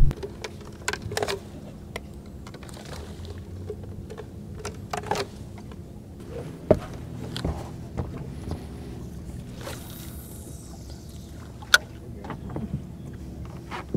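Steady low hum of a bow-mounted electric trolling motor on a flats boat, with scattered light clicks and knocks of tackle being handled on deck and one sharp click near the end.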